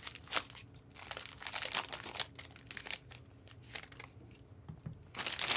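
Foil trading-card pack wrappers crinkling as they are handled and torn open by hand, in irregular crackles with a louder burst near the end.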